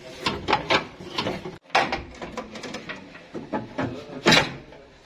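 Car air-conditioning condenser being worked out of the front of the car: a string of knocks, clicks and scraping as it catches on the surrounding parts, with one loud knock about four seconds in.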